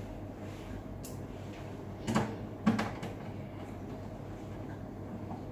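Two short knocks about two seconds in, about half a second apart, with a faint click before them: parts being handled as a stand is fitted to an OCA lamination machine.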